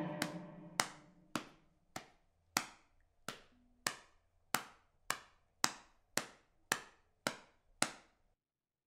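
A cello note dies away, then a run of about fourteen sharp, evenly spaced knocks follows, a little under two a second, each ringing briefly. They stop shortly before the end.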